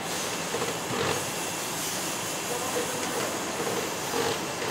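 Factory assembly-hall ambience: a steady mechanical hiss and hum, with short hissing bursts about a second in and again near the end, and faint distant voices.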